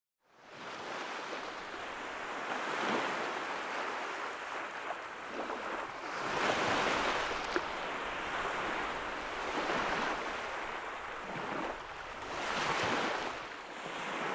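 Sea waves breaking on a rocky shore, a steady rush of surf that swells and falls back every three or four seconds.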